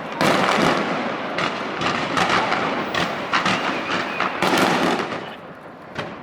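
Aerial fireworks bursting and crackling in quick succession for about five seconds, then thinning out, with one more sharp bang near the end.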